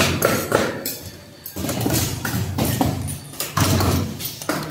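Background music with a percussive beat.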